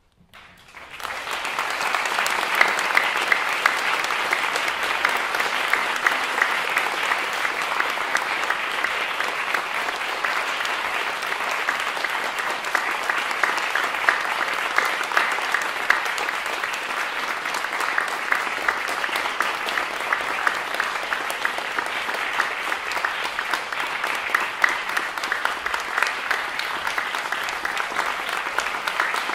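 Audience applauding: the clapping breaks out from silence, reaches full strength within about a second and a half, and then holds steady.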